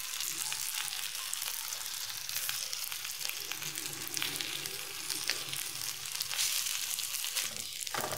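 Hot oil sizzling steadily with fine crackles in a frying pan where mud carp pieces have been pan-fried.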